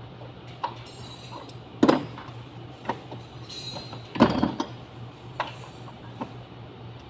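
Hand tools and metal parts clinking and knocking in a car's engine bay while the intake manifold is taken off: a handful of scattered sharp clinks, the two loudest about two and four seconds in, over a steady low hum.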